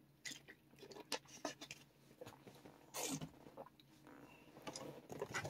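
Crinkling and rustling of a HeroClix booster pack's plastic packaging being opened and handled, with irregular small clicks and a denser rustle about three seconds in.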